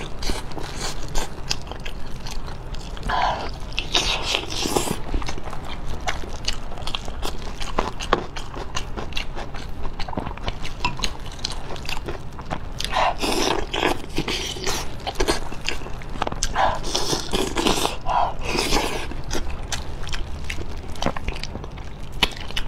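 Close-up eating of soy-braised pig tail: wet biting, chewing and gnawing of the skin and meat off the bone, with many small clicks of lips and teeth and the sound of the gloved hands pulling the piece apart.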